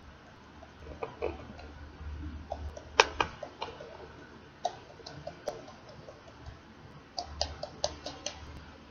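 Glass candle holder bowl being tapped and knocked by hand to shake loose glitter off its glued inside: an irregular scatter of sharp clicks and ticks, the loudest about three seconds in, with a quick run of them near the end.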